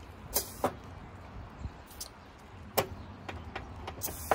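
Short, sharp clicks and puffs of air at a Firestone Ride-Rite air-spring Schrader valve as an air hose chuck is pressed on and off to add pressure, about five of them spread over a few seconds, the loudest near the end.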